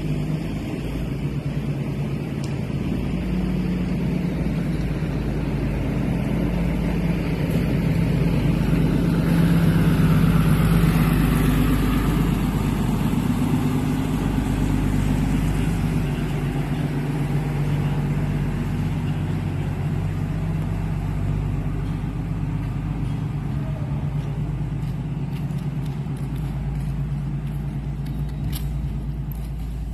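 A truck engine running steadily close by, a low even hum that grows louder around ten seconds in and then eases back.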